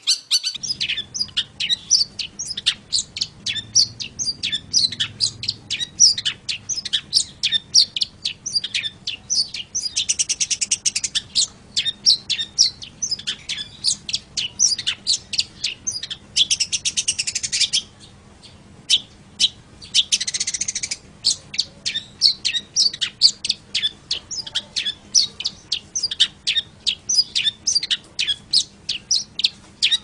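Long-tailed shrike (pentet/cendet) singing a fast, continuous run of sharp, varied high notes broken by short buzzy rattles, with one brief pause about eighteen seconds in.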